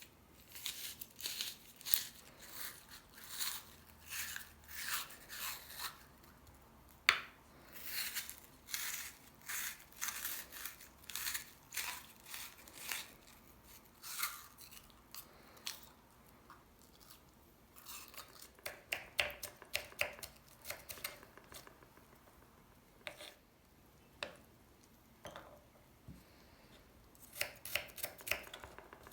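Food being prepared by hand: runs of short, crisp scraping or cutting strokes, roughly two a second, coming in bursts with pauses, with a single sharp knock about seven seconds in.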